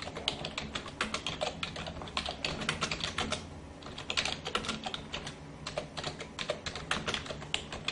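Computer keyboard typing: rapid, irregular key clicks that keep going throughout, used as the sound effect for on-screen text being typed out.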